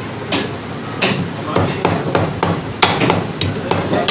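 Heavy meat cleaver chopping mutton on a thick wooden chopping block: a quick run of irregular, sharp chops.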